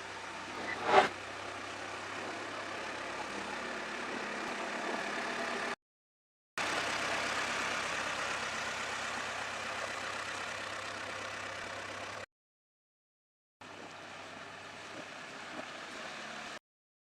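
JCB 3DX backhoe loader's diesel engine running steadily, heard in short stretches that cut off abruptly into silence and back. A sharp, loud knock comes about a second in.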